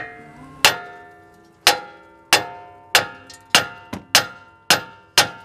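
Hammer striking the steel steering knuckle of a 2016 Ram 1500's front suspension, about nine sharp blows roughly every half second, each ringing metallically. The blows are knocking the upper ball joint's tapered stud loose from the knuckle after its nut has been backed off.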